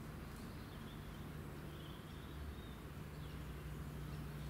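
Outdoor ambience: a steady low hum with a few faint, high bird chirps, including one short warbling call a little past the middle.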